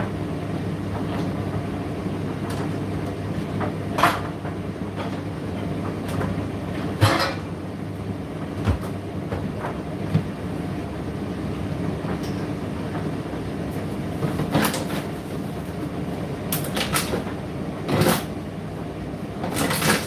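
Indesit IDC8T3 condenser tumble dryer running mid-cycle: a steady motor-and-drum hum, with about half a dozen irregular knocks from the load tumbling in the drum.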